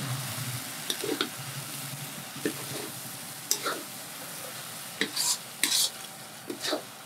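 A metal spatula scraping and clacking against a steel wok as a curry is stirred, in short irregular strokes, over a steady sizzle of frying food.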